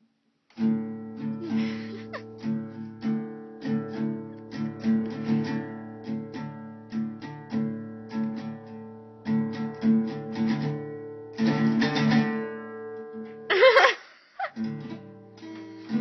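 Acoustic guitar strummed in chords at a steady rhythm, starting about half a second in. Near the end a brief, loud burst with a sliding pitch breaks in, the playing drops out for a moment, and then the strumming resumes.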